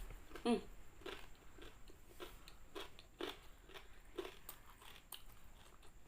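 A person biting and chewing crispy fried chicken close to the microphone, with crunches about once or twice a second.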